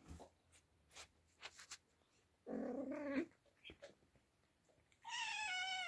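Cats meowing: a lower-pitched meow about two and a half seconds in, and a higher meow falling in pitch near the end, with a few faint clicks between.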